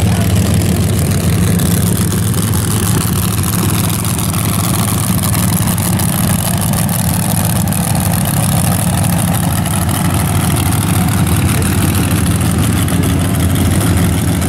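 Front-engine dragster's engine idling loudly and steadily, with a deep even low note and no big revs.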